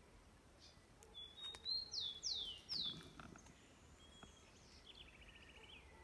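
Birds singing: a run of clear whistled notes, each sliding down in pitch, about a second in, then a quick trill near the end.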